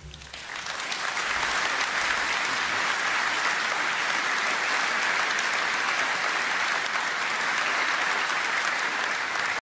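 Audience applauding, swelling over the first second, holding steady, then cutting off suddenly near the end.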